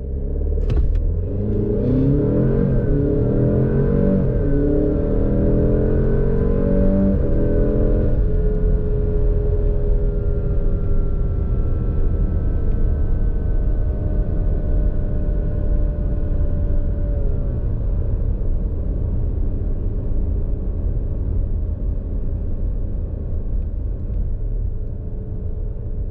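2022 Alfa Romeo Stelvio Veloce's 2.0-litre turbo four-cylinder under hard acceleration, its pitch climbing and dropping back through several quick upshifts of the eight-speed automatic. After about eight seconds it settles to a steadier, slowly falling drone over low road rumble as the throttle eases.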